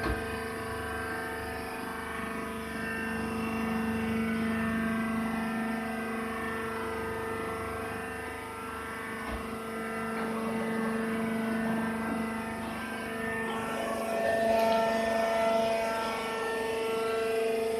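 Hydraulic baler running: the motor and hydraulic pump give a steady hum and whine at several fixed pitches. About fourteen seconds in the sound changes, getting a little louder with added hiss and a new tone, as the machine goes into another stage of its cycle.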